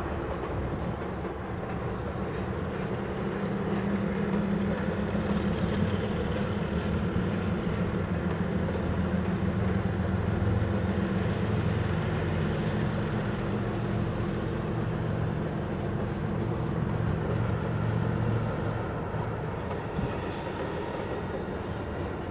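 Diesel freight locomotives running with a steady low engine drone as a BNSF train approaches, growing louder over the first few seconds, with the rumble of rolling freight cars underneath.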